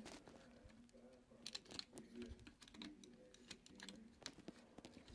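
Faint, irregular clicks and clacks of a plastic Transformers Megatron action figure's parts being handled, rotated and tabbed together as it is transformed into robot mode.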